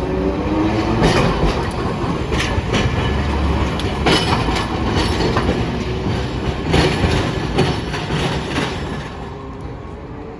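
Hiroshima Electric Railway streetcar passing over the track junction, its wheels clacking irregularly over the rail joints and crossings above a steady rumble that fades near the end.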